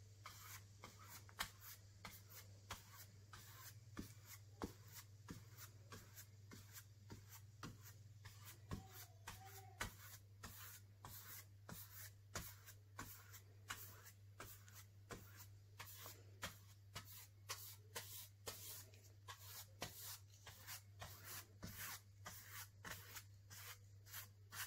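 Faint scratchy strokes of a flat paintbrush spreading silver paint across a canvas, roughly two strokes a second, over a steady low hum.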